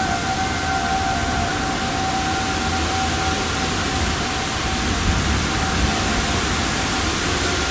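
A distant outdoor warning siren holding a steady tone that fades out a few seconds in, under a steady rushing noise.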